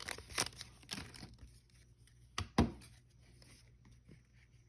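Trading-card pack wrapper crinkling as it is torn open, dying away after about a second and a half, with a single sharp knock about two and a half seconds in.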